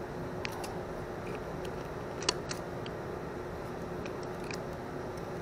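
Small clicks and ticks of a carburetor and its rubber fuel line being handled and fitted by hand, with one sharp click about two seconds in, over a steady low hum.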